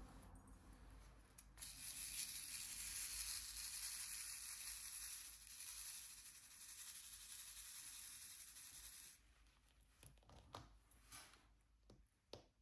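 A steady rustling hiss that starts about two seconds in and stops abruptly some seven seconds later, then a few light taps and clicks.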